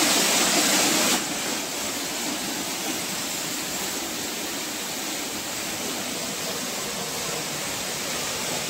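Small waterfall pouring from a cave roof into a shallow pool: a steady rushing splash of water, which drops to a lower level about a second in.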